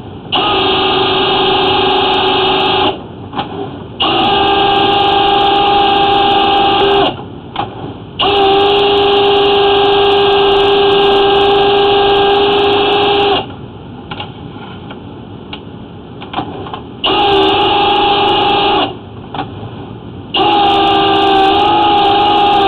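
Flex-shaft drain cleaning machine running in bursts: a steady whine started and stopped five times, with short pauses between runs, as its spinning chain cutter works down a clay sewer line cutting tree roots.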